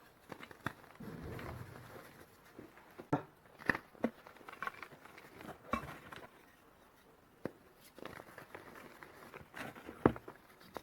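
Reformed gym chalk pieces being crushed and crumbled by hand: irregular sharp crunches and snaps, with soft powdery crumbling between them.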